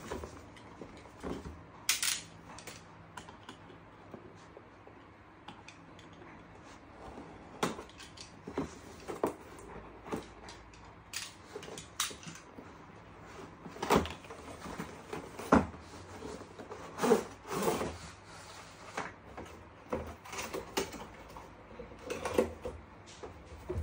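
Cardboard router box being handled and opened on a table: scattered knocks, taps and scrapes of the box and its lid, with a few longer sliding sounds.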